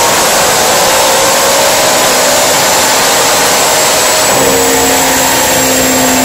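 McLaren supercar on a chassis dynamometer, its rear wheels spinning fast on the rollers: a loud, steady rush of tyre and roller noise with the engine running underneath. A steady low hum joins about four seconds in.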